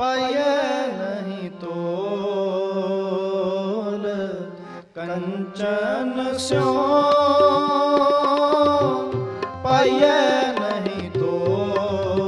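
Gurbani kirtan: a sung shabad over sustained harmonium chords. The tabla joins with regular strokes after a short pause about five seconds in.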